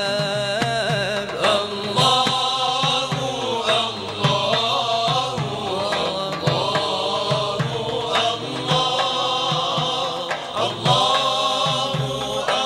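Arabic devotional chant (nasheed) in praise of the Prophet Muhammad, sung by a voice in a wavering, ornamented melody.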